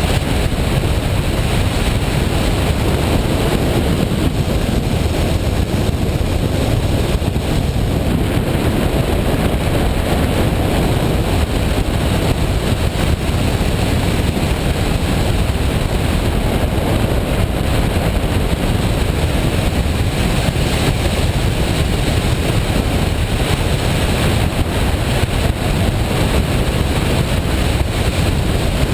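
Washing machine running: a loud, steady noise, heaviest in the low end, with no breaks or changes.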